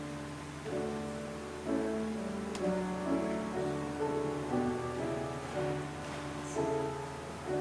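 Slow instrumental keyboard music of held notes and chords, a melody moving over sustained harmony.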